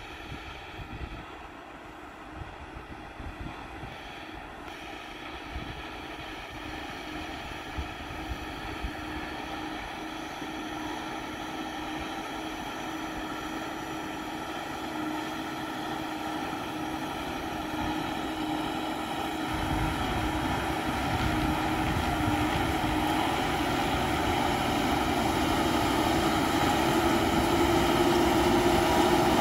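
Case IH Quadtrac 540 tracked tractor's diesel engine running under steady load as it pulls a six-furrow plough through the soil. Its steady drone grows louder throughout as the tractor comes closer.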